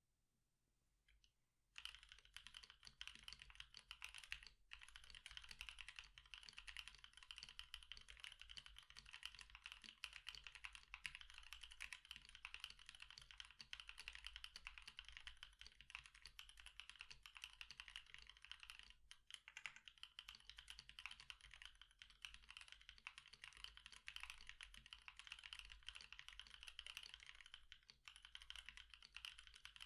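Quiet, rapid continuous typing on a Switch Couture acrylic Alice R2 mechanical keyboard with 72g NovelKeys Cream linear switches (lubed with 205g0 and filmed) on an acrylic plate, under ePBT PBT keycaps. The typing starts about two seconds in and runs on with only a couple of brief pauses.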